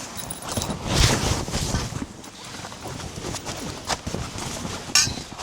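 Irregular knocking and rustling from things being handled, loudest about a second in, with a sharp click near the end.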